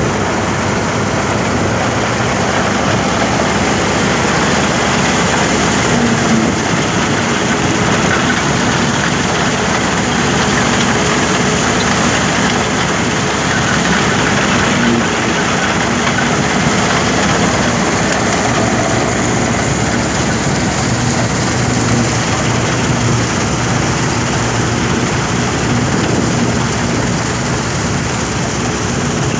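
1976 New Holland 1530 combine harvester running steadily while cutting wheat. Its engine, belt drives, reel and cutter bar make a loud, unbroken mechanical din.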